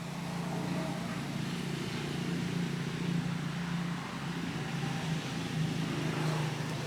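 Domestic cat purring: a steady low rumble that swells and eases in stretches of a second or two.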